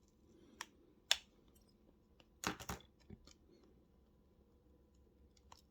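Small tools clicking and scraping against a smartphone's internal parts while a stubborn screw is worked out: a couple of single clicks, then a quick cluster of ticks at about two and a half seconds in, with faint ticks later.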